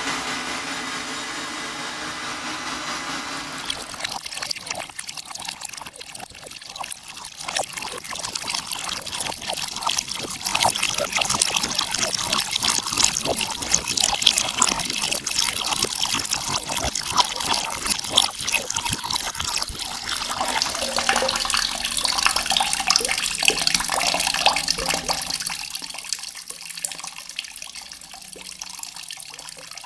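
Water splashing and trickling, a dense crackling patter of drops that sets in a few seconds in, swells, and fades toward the end.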